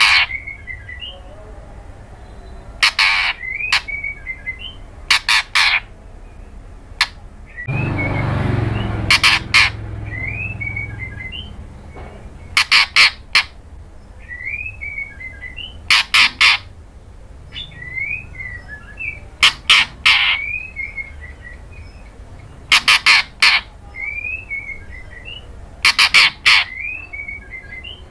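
White-rumped shama giving harsh, clicking call notes in quick clusters of two to four, repeated every three or four seconds, each cluster followed by short soft rising whistles. A noisy rustle about eight seconds in lasts around two seconds.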